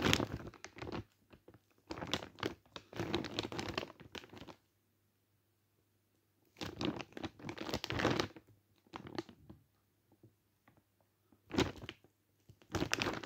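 Plastic bag of frozen chicken strips crinkling as it is handled and turned, in several irregular bursts with short quiet gaps between them.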